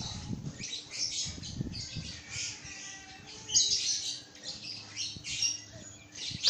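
A bird squawking repeatedly in short, harsh calls, with a couple of low thumps in the first two seconds.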